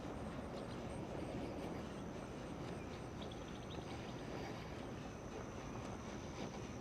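Summer evening ambience: a steady high-pitched insect trill over a low, even rumble like distant traffic, with a few faint bird chirps about halfway through.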